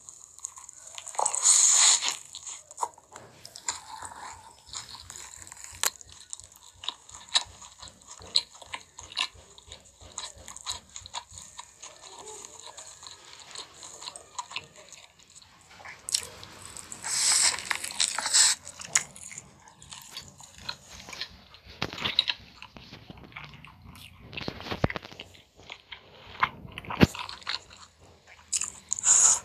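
Close-miked eating sounds: a person biting into and chewing a fried chicken burger. There are loud bites about a second in, a cluster through the middle of the second half, and another near the end, with steady small wet chewing clicks in between.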